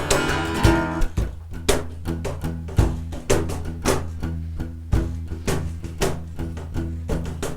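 Live rock band playing an instrumental passage between sung lines: guitars over a steady bass line and a drum kit keeping a regular beat.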